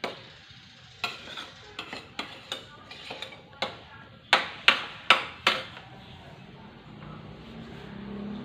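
A stirring utensil knocking and scraping against a large cooking pot: about a dozen sharp clacks, irregularly spaced, the loudest four coming close together about halfway through.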